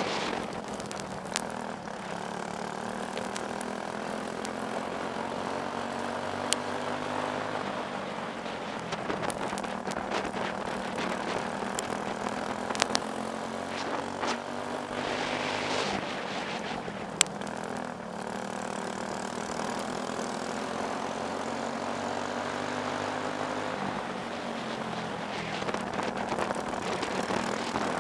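Briggs & Stratton Animal single-cylinder four-stroke kart engine running at racing speed. Its pitch falls and rises again several times, and there are a few sharp clicks.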